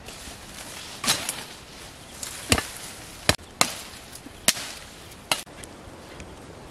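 A blade chopping into a green wooden branch: about six sharp chops at irregular intervals.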